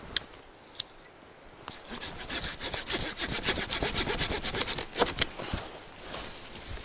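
Opinel No. 18 folding saw cutting through a pine branch in quick, even back-and-forth strokes. The strokes start about two seconds in and stop about a second and a half before the end.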